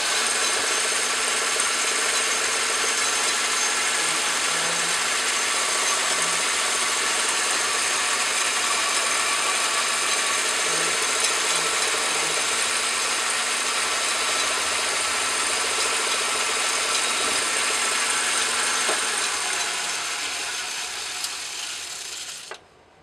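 Craftsman Atlas metal lathe running, its chuck spinning while the tool turns down aluminum stock, giving a steady mechanical whir. The sound dies away over the last few seconds and stops abruptly near the end.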